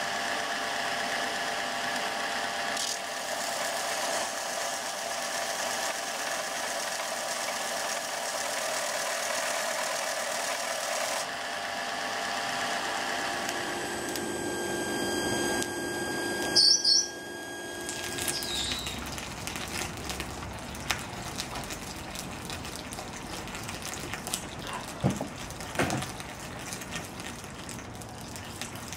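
Belt grinder running steadily as the steel cleaver blade is ground against the sanding belt, a machine hum with several steady tones. After about fourteen seconds it gives way to a quieter stretch of faint noise with scattered clicks and two sharp knocks near the end.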